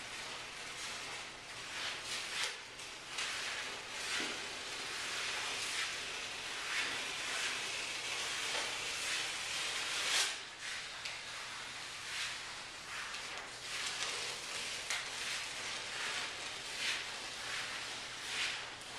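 Sheets of paper rustling and sliding across the floor as they are handled, in irregular swishes over a steady hiss, with a louder swish about ten seconds in.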